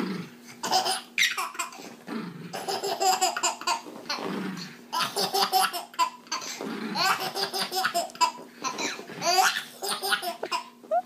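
A baby laughing hard again and again, in short bursts of laughter with brief pauses between them.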